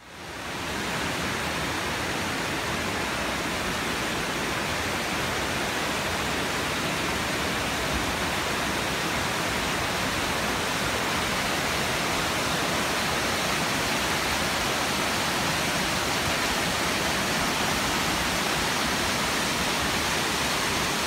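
Mountain creek cascading over rocks: a steady rush of water that fades in quickly at the start.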